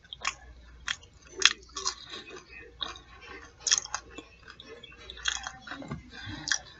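Close-miked biting and chewing of fried fish nuggets and fries: irregular crunches, the sharpest about a second and a half in.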